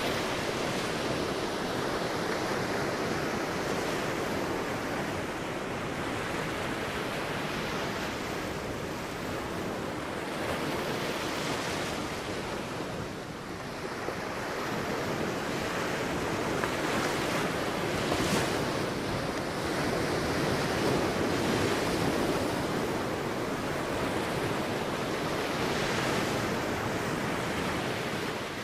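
Sea waves breaking and washing on a beach, a continuous surf that swells and ebbs every few seconds, with some wind.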